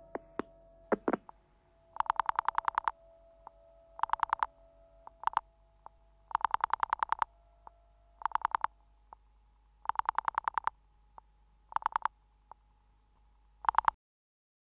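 Rotary telephone pulse dialing heard over the line: bursts of rapid clicks, about ten a second, each burst one dialed digit, with short pauses between, over a faint steady tone. It cuts off suddenly near the end.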